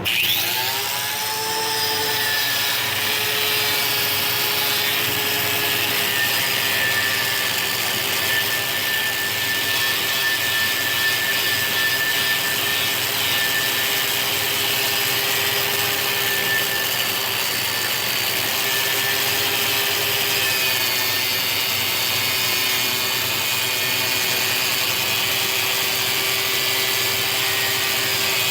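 A motor spins up with a rising whine, then runs steadily while an abrasive paint-stripping wheel scours a pole: a steady whine under a rough rubbing hiss.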